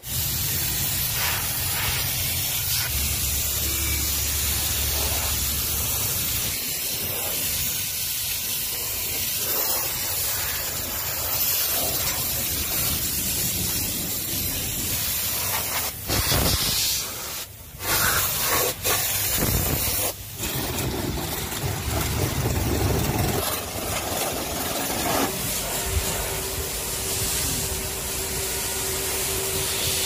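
Pressure-washer jet spraying steadily against the backhoe's metal arm over a low pump hum, cutting out briefly a few times about halfway through.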